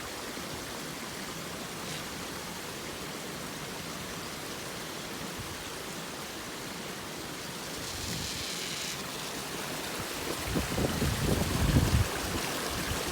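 Water rushing steadily through a dam where it drains into a whirlpool. In the last few seconds, irregular low rumbling bursts rise above it.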